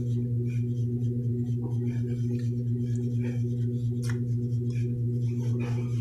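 A steady low electrical hum with a pitched buzz and overtones runs throughout, under faint wet clicks and smacks of chewing chocolate.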